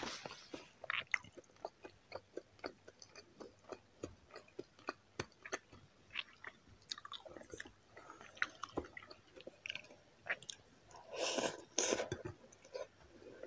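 Close-up chewing of soft braised pork belly and rice, a run of short wet clicks from the mouth. Two louder, longer noises come near the end.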